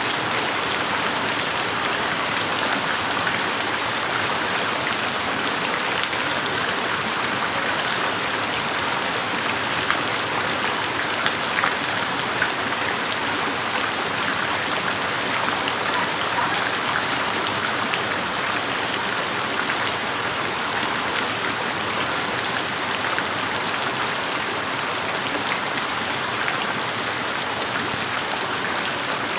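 Steady rain falling, an even hiss of dense drops with a few sharper, louder drop hits about ten to twelve seconds in.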